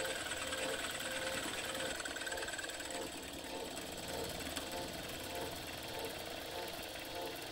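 Vertical milling machine cutting a slot in a brass square bar with an end mill: the spindle runs while the cutter makes a steady machining noise, with no breaks.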